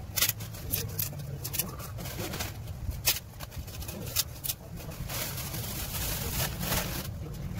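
Dry leaves crackling as they are crumbled by hand and dropped into a plastic jar, irregular sharp crinkles, then a plastic bag rustling near the end, over a steady low hum.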